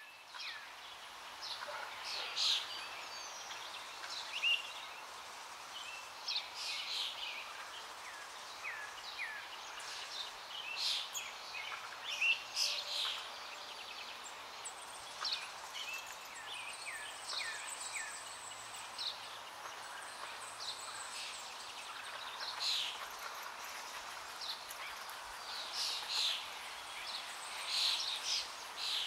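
Birds chirping and calling, many short high notes and quick little whistled glides scattered throughout, over a steady outdoor background hiss.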